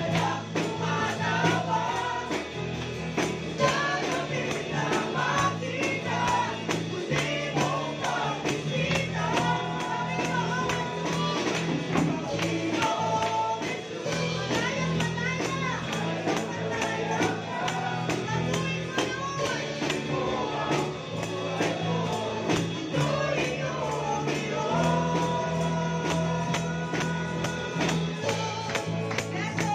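Live worship band: a woman sings a Tagalog praise song into a microphone over a drum kit keeping a steady beat with cymbals. A low bass line changes note every few seconds.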